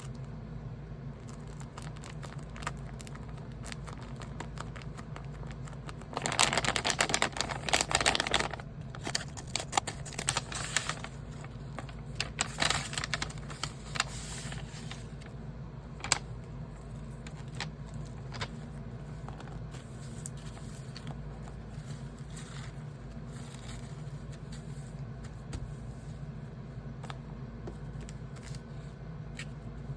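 Paper being handled, rustling and crinkling in bursts, loudest from about six to eight and a half seconds in, with scattered light taps and clicks, over a steady low hum.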